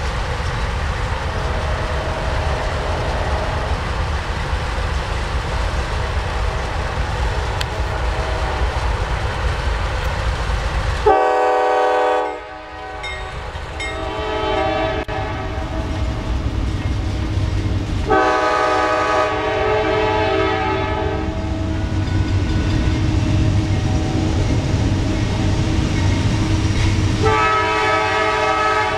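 Train rumbling past steadily, with three blasts of a multi-tone locomotive air horn: a short one about a third of the way in, another past halfway, and a third near the end.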